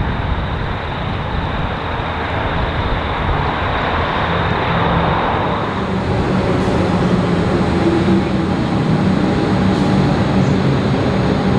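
A train's steady running noise with a low engine hum, growing slightly louder over the first half and steadying from about six seconds in.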